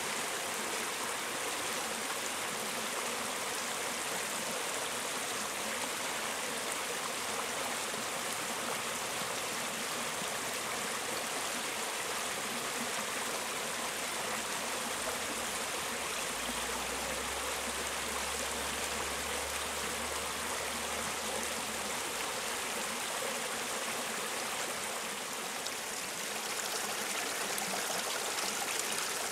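Mountain stream flowing over rocks, a steady babble of running water.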